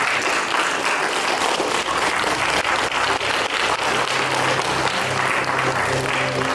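Audience applauding with dense, steady clapping. About halfway through, a low sustained musical tone enters under the clapping, with further notes joining near the end.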